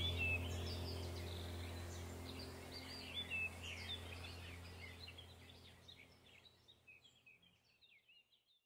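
Background ambient music fading out: a low steady drone with bird chirps layered over it, dying away to silence near the end.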